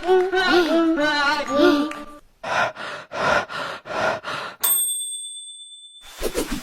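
A short run of sung melody, then four quick noisy huffs, then a single bright ding that rings out and fades over about a second, followed by a brief silence before music starts again.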